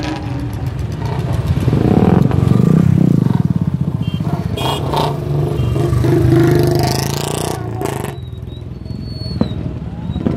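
Cars and motorcycles of a convoy driving past close by, their engines and tyres rising to a loud pass from about two to seven seconds in, then easing off near the end.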